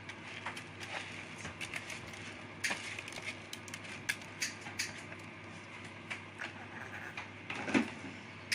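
Hand working washed raw rice into a chopped-greens and tomato stuffing mix in a bowl: irregular soft crackling and clicking of the grains over a steady low hum, with a louder thump near the end.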